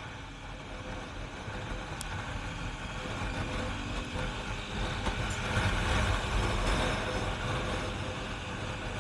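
A sport motorcycle's engine running at road speed under steady wind and road noise. The noise grows louder to a peak about six to seven seconds in, then eases slightly. There is one brief tick about two seconds in.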